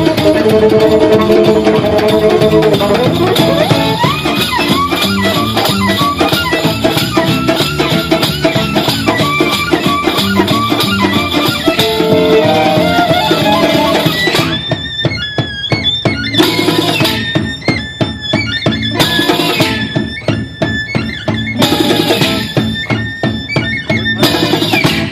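Live instrumental music in a Romanian gypsy style: fast melodic runs with held notes over a steady accompaniment, then about halfway through the band switches to short, choppy stabbed chords with brief gaps between them.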